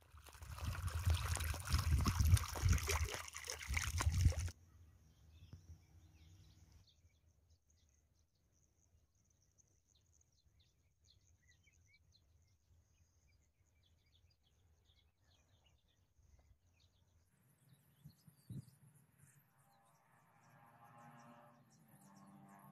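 Loud noise buffeting the microphone for about four seconds, then cutting off abruptly. After that comes faint outdoor quiet with faint, scattered bird chirps.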